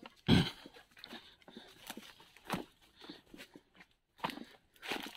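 Footsteps crunching irregularly through dry leaves and brush, with one loud thump about a third of a second in.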